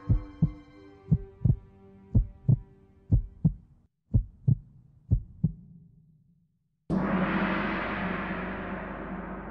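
Music for a documentary title sequence. A heartbeat-like pulse of paired low thumps, about one pair a second, fades out. About seven seconds in, a gong-like crash comes in suddenly and slowly decays.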